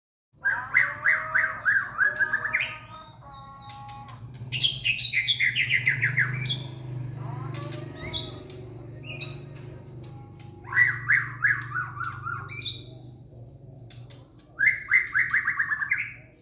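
White-rumped shama (murai batu) giving its harsh, rattling 'ngorok' call: about four bouts of rapid raspy notes, one sliding down in pitch, with short sharp notes between them, over a low steady hum.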